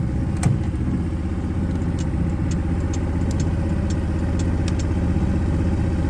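Small farm truck's engine running steadily, with a sharp click about half a second in and a few faint ticks after it.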